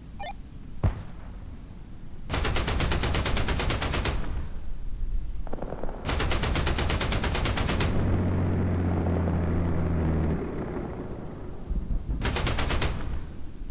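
Three bursts of rapid automatic gunfire, the first two lasting about two seconds each and the last shorter. A sharp click comes about a second in, and a low steady hum follows the second burst for about two seconds.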